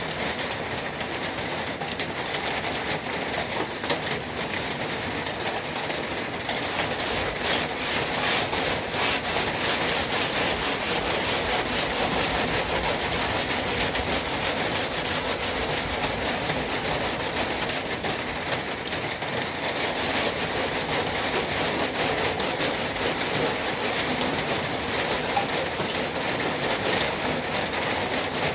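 60-grit sandpaper scratching over a truck toolbox in quick, steady back-and-forth sanding strokes, growing louder and harsher about six seconds in and easing for a moment before picking up again.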